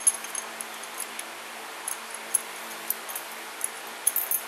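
Scattered light metallic clicks and clinks of a small steel hand tool and loose washers at the aluminium cylinder head of an engine being dismantled, a cluster of them near the end.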